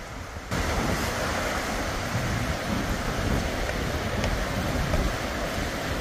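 Wind buffeting the microphone over surf washing onto the beach, coming in suddenly about half a second in and then holding steady.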